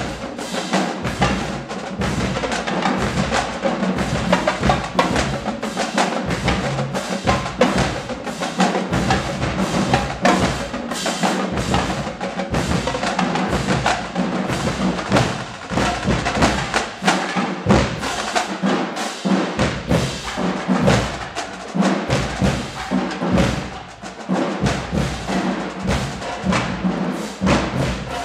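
Marching band drumline playing a cadence: tenor drums, snare drums, bass drums and cymbals struck in dense, rapid patterns.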